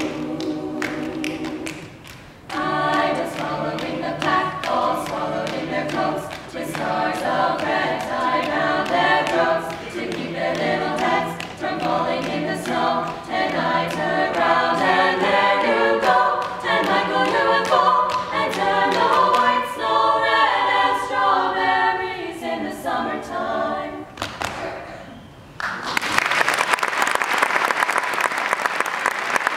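A cappella group of mixed male and female voices singing in close harmony, with a low held bass note under much of it and a beat of sharp clicks. The song ends about 24 seconds in, and audience applause breaks out about two seconds later.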